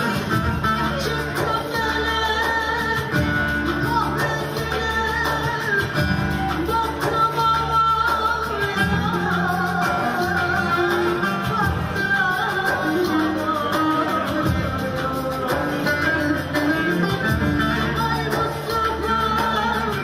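A woman singing a Turkish folk song into a microphone over amplified instrumental accompaniment.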